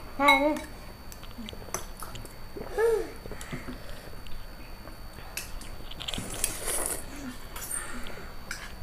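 People eating instant noodles at a table: chewing and biting, a hissy slurp of noodles about six seconds in, and light clicks of forks and chopsticks. Two brief vocal sounds come near the start and about three seconds in.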